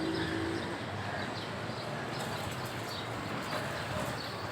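Street ambience: a steady wash of distant traffic noise, with faint high chirps.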